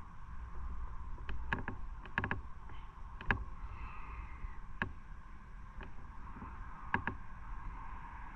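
Motorcycle riding at a steady pace: a steady drone with low rumble underneath, and sharp clicks or knocks scattered irregularly through it.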